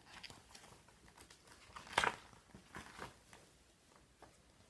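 Paper rustling and crinkling as a picture book's pages are handled and turned, loudest about two seconds in.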